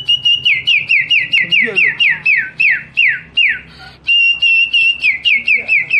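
A boy whistling a bird-call imitation: a held high note, then a fast run of short downward-sliding whistles, about four a second, with a short break near the middle before the held note and the run start again.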